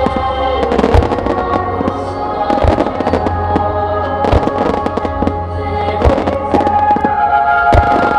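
Aerial fireworks shells bursting with deep booms about every second and a half to two seconds, with crackling bursts in between, over sustained music accompanying the show.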